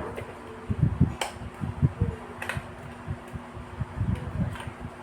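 A steady hum under irregular dull knocks and a few sharp clicks, as of parts and tools being handled.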